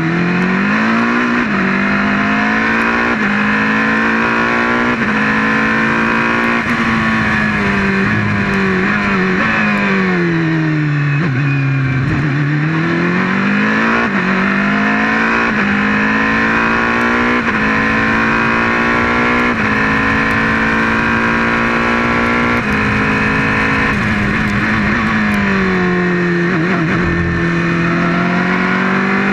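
Onboard sound of a sports prototype race car's engine at racing speed, rising in pitch and dropping at each gear change. Twice, about twelve seconds in and again near the end, the revs fall as the car slows for a corner, then climb again as it accelerates out.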